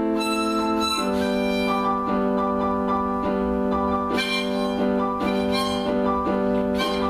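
Electronic keyboard played with a piano sound: sustained chords under a slow line of notes struck about twice a second, the chord shifting lower about a second in.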